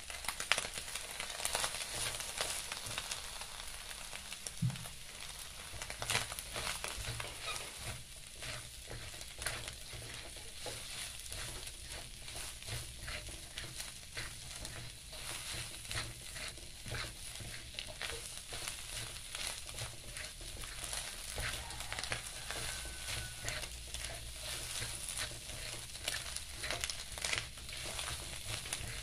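Chopped mustard greens and cabbage sizzling in a hot wok while a spatula stirs and tosses them, with frequent short clicks and scrapes of the spatula against the pan.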